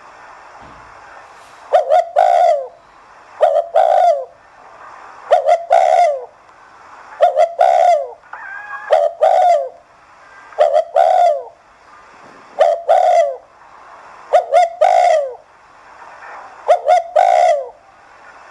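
Spotted dove cooing over and over in the fast 'thúc gù' style: each phrase is a few quick notes ending in a longer falling coo, repeated about every two seconds, nine times. This is the call dove keepers play to rouse newly caught doves to start cooing.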